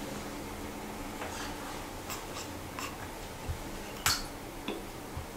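A rubber balloon being blown up by mouth: faint breaths into it with small squeaks and clicks of the rubber at the lips, and a brief louder hiss about four seconds in.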